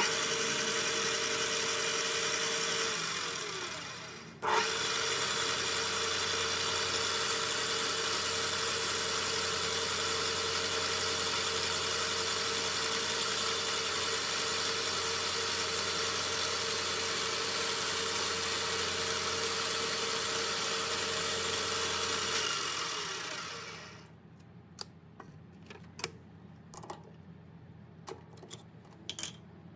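An electric power tool motor runs at steady speed with a constant whir. It is switched off about three seconds in and spins down with falling pitch. It starts again a second later and runs for about eighteen seconds before switching off and coasting down again. A few light knocks and clicks follow near the end.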